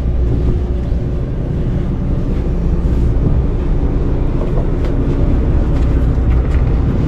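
Boat engines running with a steady low rumble, with a few faint clicks.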